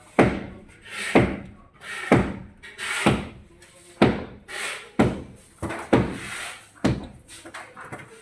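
Hammering: heavy blows about once a second, each with a short ringing rattle after it.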